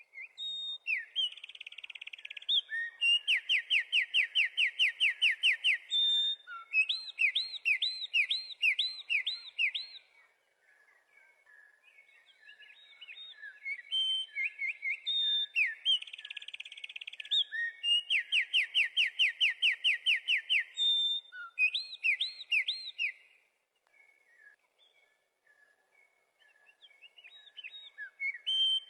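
A songbird singing two long, varied song phrases, each with fast runs of repeated notes and looping whistles, separated by a quieter pause near the middle and followed by another near the end, with fainter high-pitched notes above.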